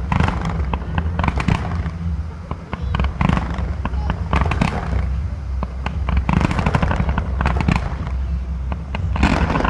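Fireworks going off in quick succession: clusters of sharp bangs and crackles, with a steady low rumble underneath.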